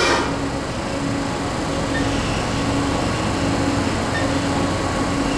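Steady mechanical hum of a powered-up Haas VF-3 CNC vertical machining center, with a faint tone that comes and goes about once a second.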